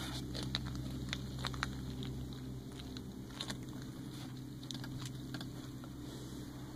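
Scattered light clicks and taps from hands and camera handling over the van's metal floor seat rails, above a steady low hum in the cabin.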